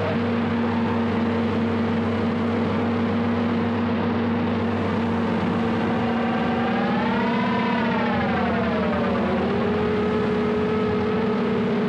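Steady low electronic drone over hiss. About six and a half seconds in, a higher wavering tone swells, rising and then falling, then settles back into the drone.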